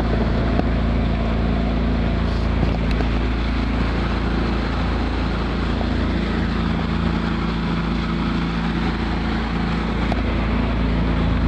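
Small speedboat's outboard motor running steadily at speed, a constant drone, with water rushing past the hull and wind buffeting the microphone.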